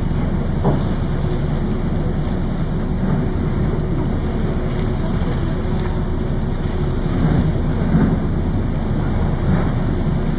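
Icebreaker ship Aurora pushing through drift ice: a steady low rumble and rush of water along the hull, with a few faint knocks and crunches as floes break and scrape, about a second in and again near the end. Wind buffets the microphone.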